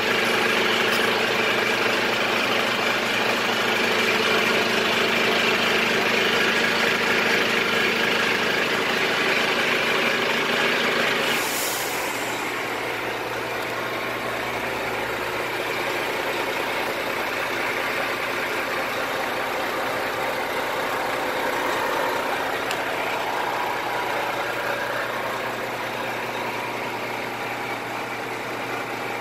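Renault Trucks T460 tractor unit's diesel engine idling steadily. There is a short hiss about eleven seconds in, after which the sound is a little quieter.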